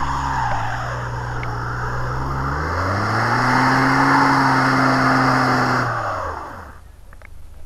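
Ford F-150 EcoBoost twin-turbo V6 revving as the truck, stuck in deep muddy snow, tries to drive out with its wheels spinning in the slush. The revs climb about three seconds in, hold, then drop away and the engine fades about six seconds in.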